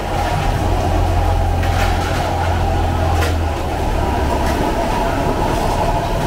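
Steady rumbling roar of a busy open-air hawker stall kitchen with a low hum that drops away about halfway through, and a few sharp clinks of crockery.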